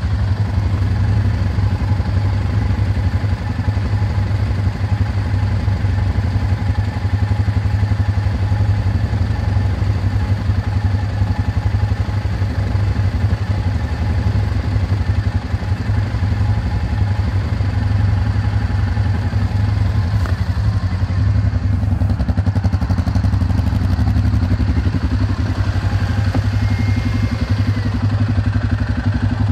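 Suzuki KingQuad ATV's single-cylinder four-stroke engine idling steadily in neutral.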